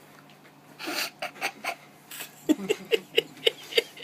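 A person's breathy vocal sounds: a few noisy huffs, then from about halfway a quick, even run of short voiced pulses, about four a second.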